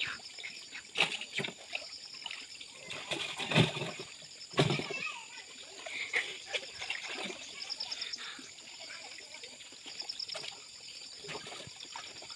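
Pond water splashing and sloshing as a person wades waist-deep and sweeps hand scoop nets through it. A run of sharp splashes comes in the first five seconds, the loudest about three and a half and four and a half seconds in, then lighter splashing.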